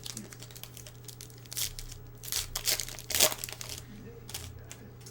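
Crinkling and tearing of a trading-card pack wrapper and the shuffle of cards being handled, in a run of short rustling bursts over a steady low hum.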